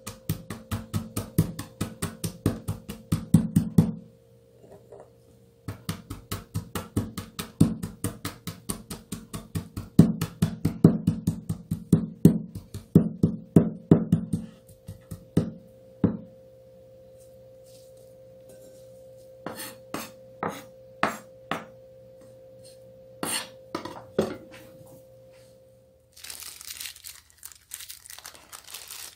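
Garlic cloves being pounded on a wooden cutting board, a quick run of sharp knocks at several strikes a second that stops twice, then a few scattered knocks. Near the end a plastic glove crinkles.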